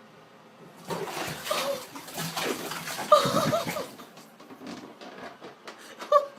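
Water splashing and running, with a cat's wavering meows about three seconds in and a short meow near the end.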